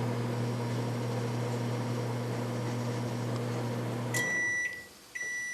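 Microwave oven running with a steady hum that shuts off about four seconds in, followed by its end-of-cycle beeps: one short high beep, then a second one starting near the end.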